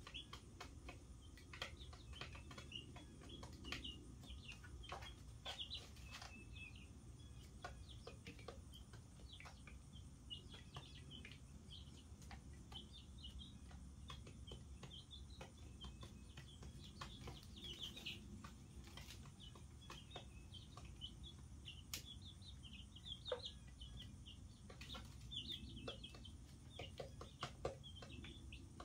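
A brood of chicks a couple of weeks old, peeping in short, high calls over and over, with scattered sharp clicks and a faint low hum underneath.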